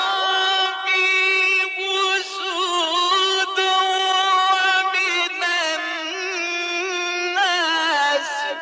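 A male reciter chanting Quranic verses in the melodic mujawwad style: one long, ornamented vocal line on a high pitch, wavering and turning through embellishments with only brief breaks.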